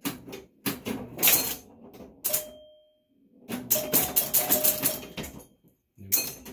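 Electromechanical Super Flite pinball machine in play: bursts of rapid mechanical clacking from its relays, solenoids and score reels, broken by short pauses, with chime bells ringing. A single bell tone sounds about two seconds in and dies away; the busiest run of clacking and chimes comes a little past the middle.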